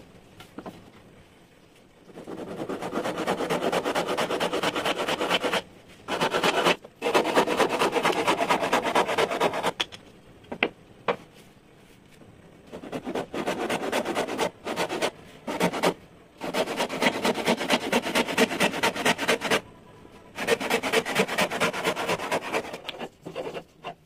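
Handsaw cutting through a wooden plank, in several runs of steady sawing strokes with pauses of a second or two between them.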